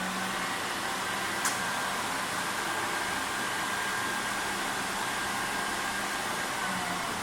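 Automatic cellophane wrapping machine running steadily, a fan-like rush with a faint steady whine and low hum, with one sharp click about a second and a half in.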